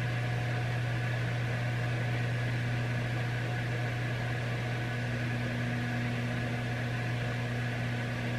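Steady low hum with a few faint constant tones above it, like a running appliance or fan; a further low tone joins about five seconds in.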